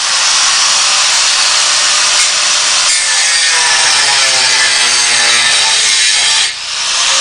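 Power saw cutting through sheet-metal vehicle floor with a steady rasping noise. There is a brief letup about six and a half seconds in before the cut resumes.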